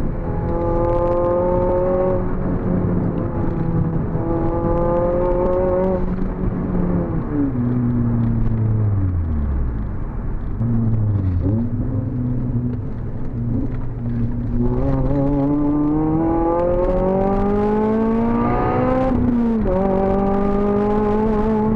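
Honda Civic Type R FN2's four-cylinder engine, breathing through a COBRA resonated sports exhaust, pulling through the gears: the pitch climbs and drops back at each upshift. In the middle it slows on engine braking with the pitch falling, gives a short throttle blip, then pulls hard again and climbs through another shift near the end.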